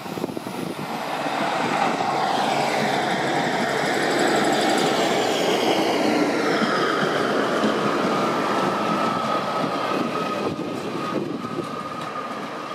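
Arriva Trains Wales Class 150 Sprinter diesel multiple unit, with a Class 153 car behind, running slowly past close by: diesel engine and wheel-on-rail noise with high whining tones that slide in pitch.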